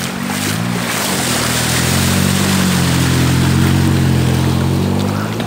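A motor vehicle's engine hum swells and fades as it passes, loudest about three and a half seconds in, over a steady rushing noise.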